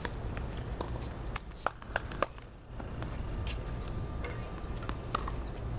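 Four sharp knocks of tennis balls in quick succession about a second and a half in, over a steady low rumble.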